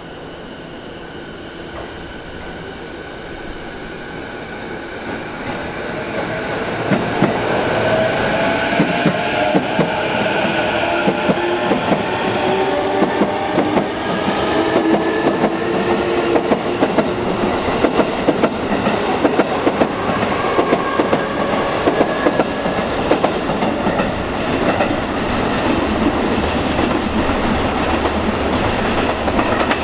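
Keiyo Line E233-5000 series electric train running past, its traction motor whine rising in pitch as it picks up speed, then wheels clattering rhythmically over rail joints.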